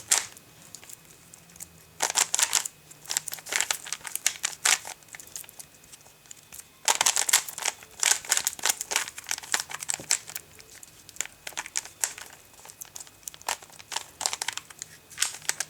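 Plastic Rubik's Cube being turned by hand in quick runs of moves, its layers clicking and rattling in bursts of a second or two with short pauses between.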